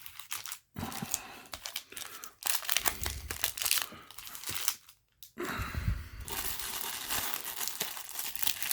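Plastic packaging and foil booster-pack wrappers crinkling as they are handled and moved about, with irregular crackles and a short pause about five seconds in.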